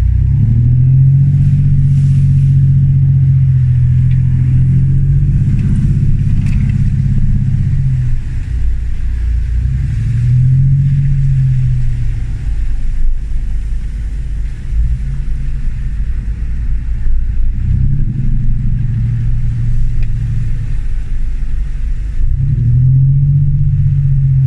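Land Rover Discovery 1's 300Tdi four-cylinder turbodiesel engine pulling off-road. It revs up several times under throttle, a long pull in the first eight seconds and then shorter ones, and drops back to a lower note between them.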